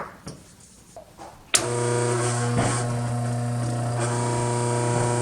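Mockmill 100 electric stone grain mill switched on about a second and a half in after a few light clicks, its motor starting suddenly and then running with a steady hum.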